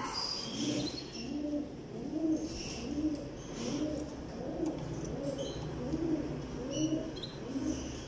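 Low, repeated cooing of pigeons, about two notes a second, steady throughout. A few brief high chirps from caged canaries sound over it.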